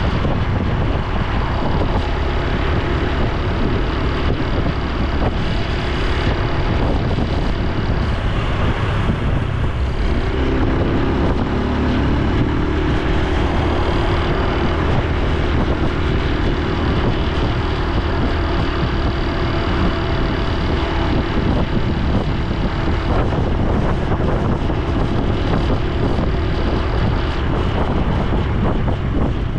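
Honda Super Cub C125's air-cooled single-cylinder engine and exhaust running steadily while riding, with wind rushing over the microphone.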